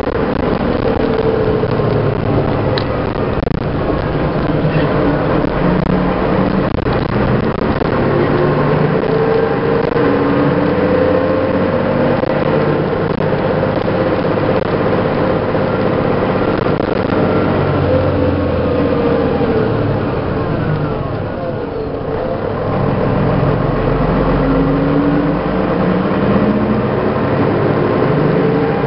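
1988 MAN SL 202 city bus's diesel engine running under way, its note rising and falling as it pulls through the gears; it eases off about two-thirds through, then climbs again.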